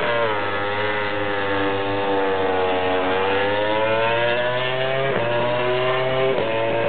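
A single racing motorcycle's engine passing: the note sags, then climbs steadily as the bike accelerates, broken twice near the end by quick gear changes.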